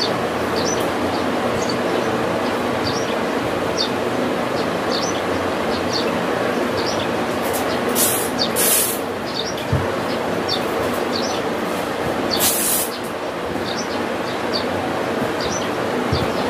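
A steady rumbling drone with short high chirps repeating about once a second, and two brief rasping hisses, the first about eight seconds in and the second about four seconds later.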